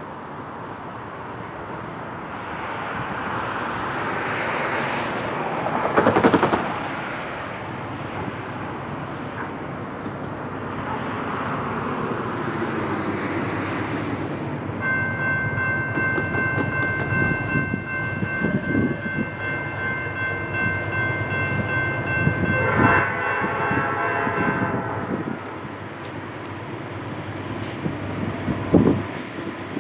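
An approaching freight train led by a GE Dash 8-40CW locomotive, its rumble building, with the engine's five-chime Nathan P5 air horn sounding one long steady chord about halfway through that lasts several seconds.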